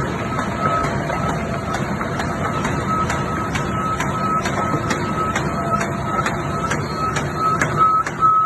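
CHM paper sheeter and A4 copy paper production line running: a steady machine rumble with regular clicks about three a second, and a high repeating beep that grows clearer near the end.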